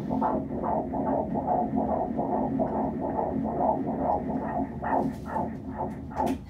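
Fetal heartbeat at 28 weeks heard through a Doppler ultrasound machine's speaker: a fast, rhythmic whooshing pulse, two to three beats a second.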